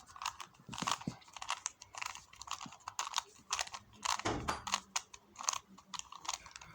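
Rubik's Cube layers being turned by hand in quick succession, a run of irregular plastic clicks and clacks, several a second, as the last-layer corner algorithm is repeated to finish the solve.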